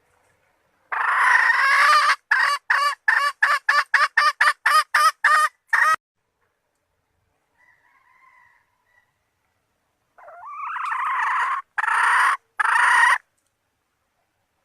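Red junglefowl hen calling: a long call, then a quick run of about a dozen short notes, a faint call, and finally a long call that grows louder, followed by two short notes. This is a hen's call to attract males.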